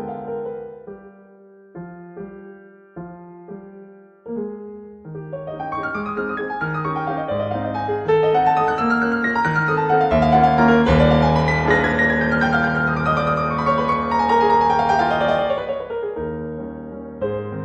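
Background piano music: a few sparse chords, then from about five seconds a fuller, louder passage with a falling run of notes near the end.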